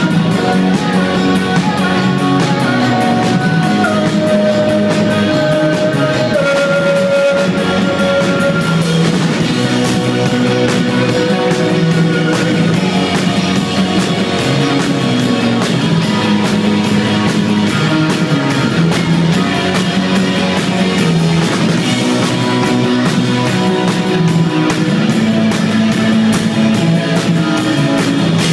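Rock band playing live, with guitar and drum kit; a held note steps down in pitch a few seconds in.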